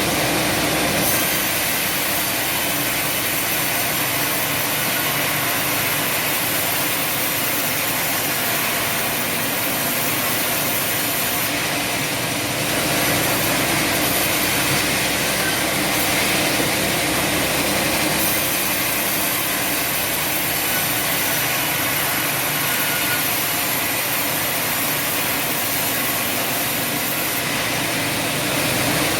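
Sawmill machinery running steadily: a continuous engine-like drone under a constant hiss, with no distinct cuts or impacts standing out.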